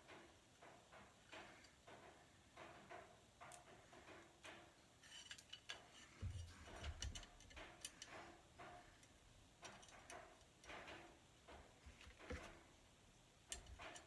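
Faint, irregular clicks and light knocks of small parts and tools being handled while assembling a 3D printer frame, with a few dull low thumps about six seconds in.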